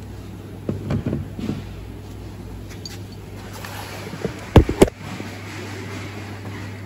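Handling noise in a car's engine bay: a few light knocks as a pair of side cutters is set down, then two sharp thumps about four and a half seconds in, over a steady low hum.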